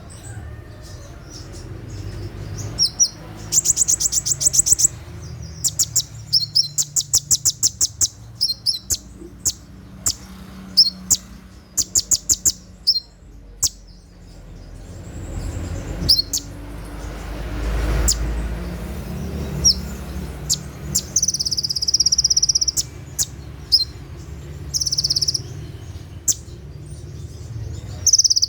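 Olive-backed sunbird (kolibri ninja) singing its 'tembakan' song: fast, high trills of clicking notes in short bursts, sharp single notes between them, and longer buzzy notes near the end. A low steady hum lies underneath.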